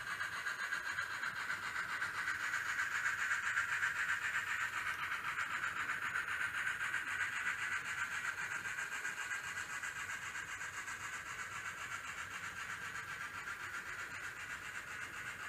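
N scale model Challenger locomotive running down the layout's spiral track: a steady, high running sound from the model's motor and wheels on rail. It grows louder a few seconds in, then slowly fades.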